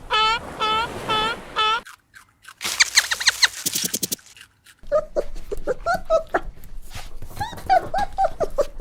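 Several different animal calls in succession: a run of evenly spaced pitched calls, then after a short gap a burst of high squeaks, then a busy chatter of short calls.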